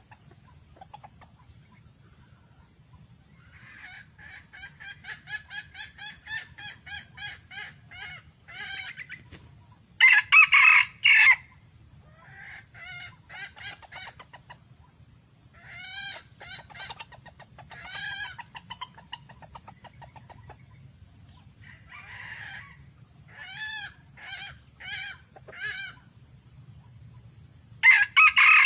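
Junglefowl clucking in rapid runs of short notes, with two loud, short crows, about ten seconds in and again near the end, standing out above the clucking.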